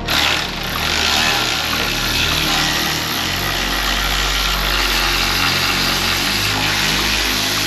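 A handheld power tool running steadily for about seven and a half seconds, starting and stopping abruptly.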